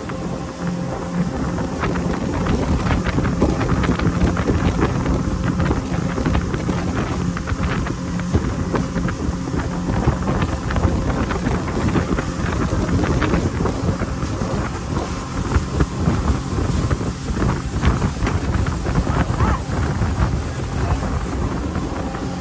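Wind buffeting the microphone on a motorboat under way, over the steady drone of the boat's engine.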